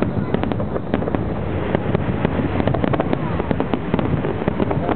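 Aerial fireworks shells bursting and crackling in quick, dense succession, many sharp bangs a second.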